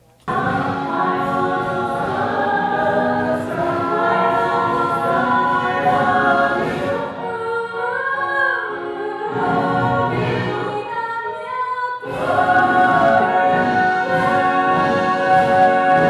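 Musical-theatre cast singing together in an ensemble number, starting suddenly just after the beginning with a brief lull in the middle.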